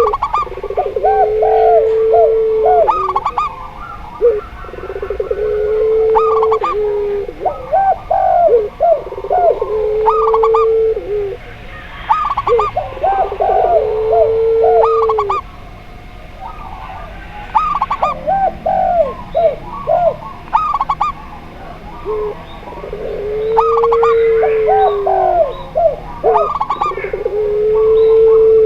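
Zebra dove, spotted dove and puter pelung (Barbary dove) cooing together: long, low, drawn-out coos of about two seconds repeat every few seconds, with quicker, higher rolling coo phrases between them and faint high chirps.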